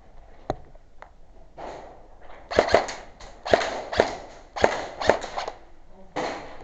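Airsoft guns firing: two light clicks, then a run of sharp cracks, several in close pairs, set in short bursts of hissing noise.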